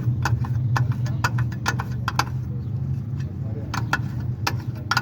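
Irregular metallic clinks and taps of hand tools and steel parts during tractor brake work, over a steady low engine hum.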